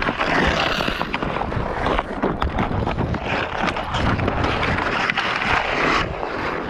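Hockey skate blades scraping and carving across outdoor pond ice, with frequent sharp clacks of sticks against the puck and ice, over wind buffeting the microphone.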